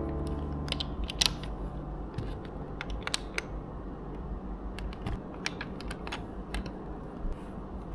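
Plastic Lego pieces clicking and rattling in hand during a build: irregular light clicks, several a second at times.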